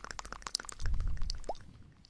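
Close-microphone ASMR trigger sounds: a few fading clicks, then a low rumble from the microphone being brushed about a second in, and a single short rising plop near the end.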